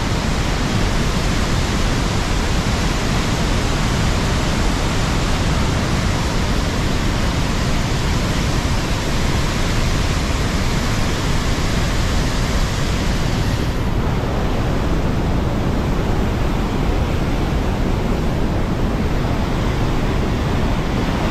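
Large waterfall in full spate rushing and crashing close by, a loud, steady wash of water noise. About two-thirds of the way through, the highest hiss thins out as the view turns away from the falls.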